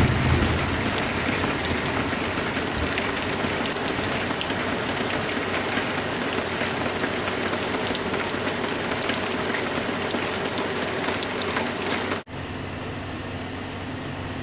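Heavy rain falling steadily, a dense patter of drops. About twelve seconds in it cuts off abruptly to softer rain with a low steady hum underneath.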